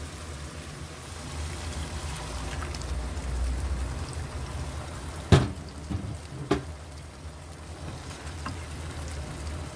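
Minced meat and onion frying in a pan as bottled tomato sauce is poured over it, with a steady low hum underneath. A sharp knock sounds about five seconds in, and a smaller one a second later.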